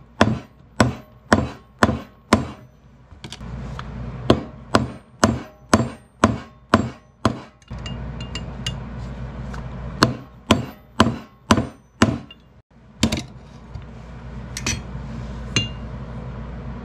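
Hammer striking a bent steel ATV brake caliper mounting bracket on a bench vise anvil to straighten it. The blows come in quick runs of about two a second, broken by short pauses, over a steady low hum.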